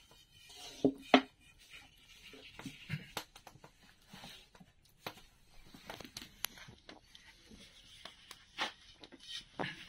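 Long thin wooden rolling pin knocking against a wooden dough board: two sharp knocks about a second in, then scattered light taps and clicks as the dough sheet is handled.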